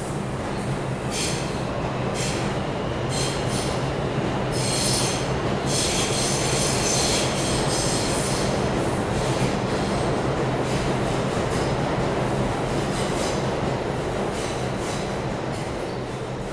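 New York City subway train on the IRT Lexington Avenue Line passing through the station: a steady rumble and hum, with high metallic wheel screeching that comes and goes. It grows louder toward the middle and fades near the end as the train clears the platform.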